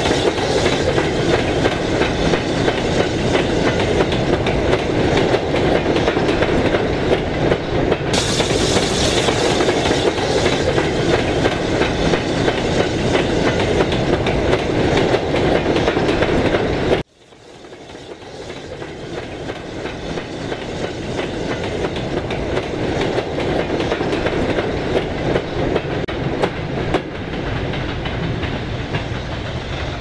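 Recording of a real British freight train's wagons rolling past with a clickety-clack over the rail joints. About seventeen seconds in the sound cuts out abruptly and fades back up as the rolling goes on.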